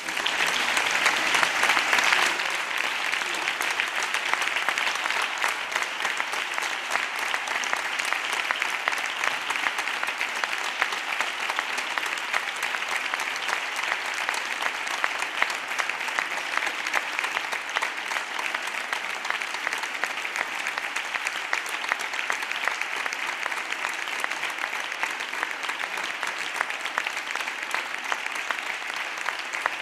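A large crowd applauding, a dense unbroken clapping that starts abruptly, is loudest in the first two seconds or so, then holds steady throughout.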